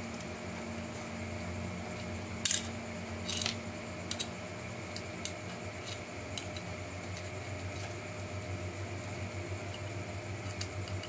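Sharp little clicks and knocks of a small screwdriver and tiny screws against a plastic RC-car inner fender liner as it is screwed together, the loudest click about two and a half seconds in. A steady low hum runs underneath.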